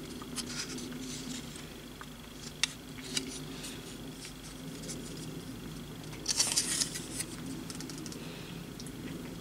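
Light clicks and a short scratchy rustle about six to seven seconds in as plastic model kit hull parts are handled in the fingers and set down, over a steady low background hum.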